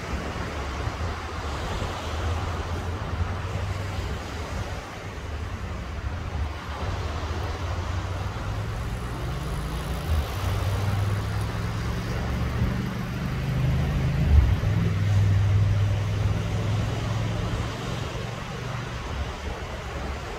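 Small waves washing onto a sandy beach. Under them, the low hum of a motor engine swells through the middle and eases off near the end, as a vehicle or boat passes.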